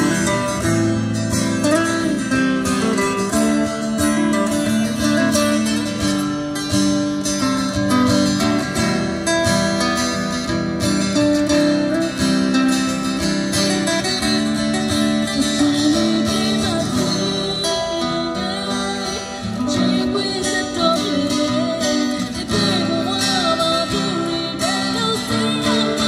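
Live acoustic music: two acoustic guitars playing together, with a woman singing into a microphone over loudspeakers, her voice more prominent in the later part.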